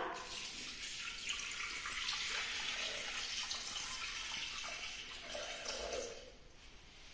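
Water poured from a glass measuring jug into a Thermomix's stainless-steel mixing bowl: a steady splashing stream that tapers off and stops about six seconds in.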